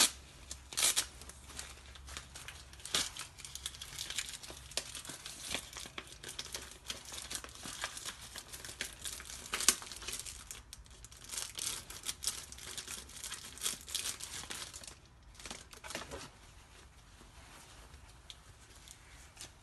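Plastic mailer bag and paper packing crinkling and rustling as they are handled and pulled from around a stuffed teddy bear: irregular crackles, quieter in the last few seconds.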